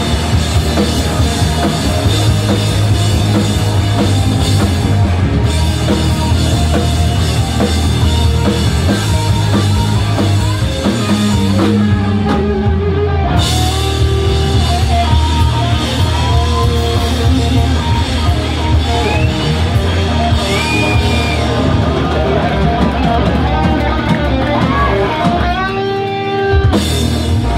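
Punk rock band playing live: distorted electric guitars, bass and drum kit, loud and driving, with a short stop near the end.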